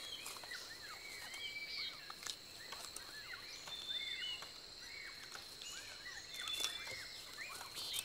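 Tropical forest ambience: many faint, short arching chirp calls repeating throughout over a steady high whine.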